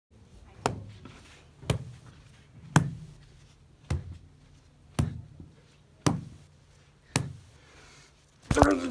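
Seven sharp knocks evenly spaced about a second apart, each with a short low thud. A louder, rougher sound breaks in just before the end.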